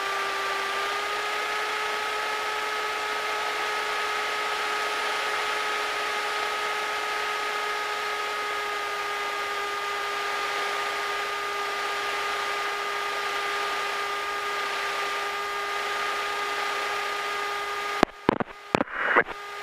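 Light aircraft engine heard over the aircraft intercom as a steady whining hum while taxiing, its pitch stepping up slightly about a second in. A few sharp crackles and dropouts near the end.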